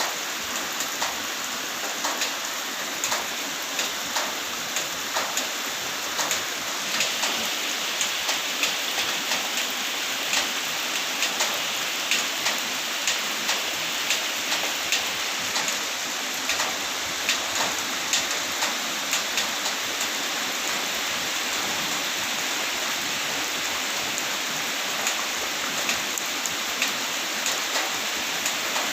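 Steady rain falling, an even hiss with frequent sharp drop hits on a nearby surface, about two a second.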